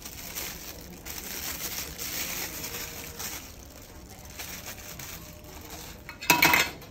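Plastic packaging crinkling and rustling as it is handled, with one louder, brief crackle about six and a half seconds in.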